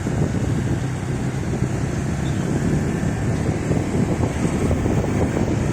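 Steady rumbling noise of a moving vehicle, with wind buffeting the microphone.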